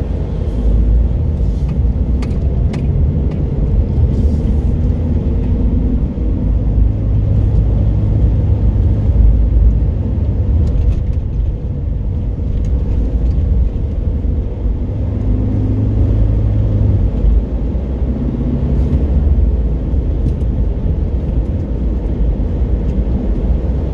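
A car driving along town streets, heard from inside the cabin: a steady low rumble of engine and road noise.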